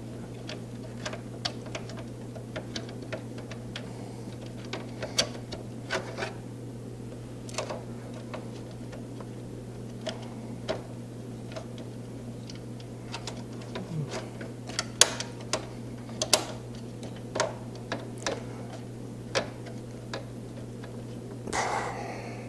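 Irregular small clicks and ticks of a screwdriver and screws working against the steel top panel of a PC case as a 140 mm fan is screwed in, over a steady low hum. A few louder clicks come about two thirds of the way through.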